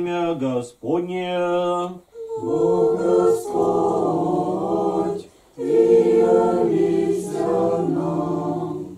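Small a cappella choir singing an Orthodox liturgical chant, in four phrases with short breaks between them; the two later phrases are long, held notes.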